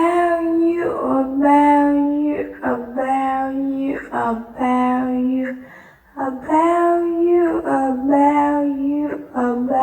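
A high solo voice singing a short melodic phrase with long held notes, then singing it again after a brief pause about six seconds in.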